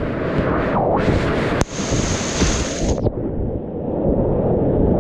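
Whitewater rapids rushing and splashing around a kayak heard close up, a dense low rumble of churning water, with a burst of splash hiss over the first three seconds and a single sharp click about a second and a half in.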